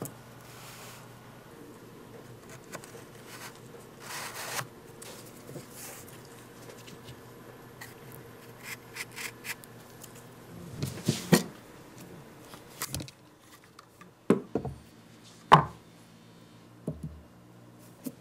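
Handling sounds of a cardboard model gun: light rubs and clicks of cardboard parts, with a louder flurry of clicks partway through. Then a few sharp, separate knocks of a metal gun's parts being handled at a workbench.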